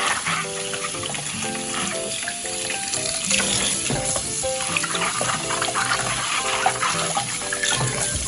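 Background music of short repeated notes, over the steady rush of running water like a kitchen tap.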